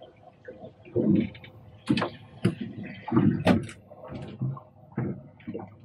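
A series of irregular knocks, clicks and dull thumps from handling, some sharp and some low.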